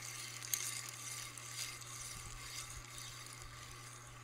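Magnetic wheel of a Whee-Lo toy rolling fast along its wire rails as they are tilted back and forth: a faint rolling noise with a few light clicks, over a steady low hum.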